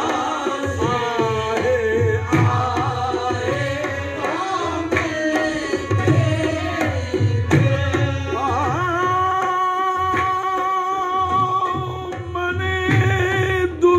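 A man singing a Persian-language song solo, with ornamented lines that bend and turn in pitch, then holding one long, wavering note about two-thirds of the way through. Tabla-like drum strokes sound underneath.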